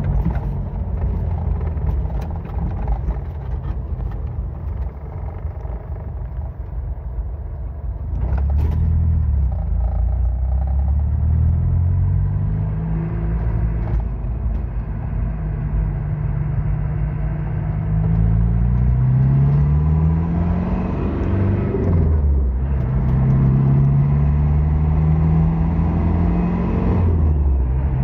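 Car engine and road noise heard from inside the cabin while driving, the engine note climbing repeatedly as the car accelerates, with a brief drop in sound near the three-quarter mark and another near the end, like gear changes.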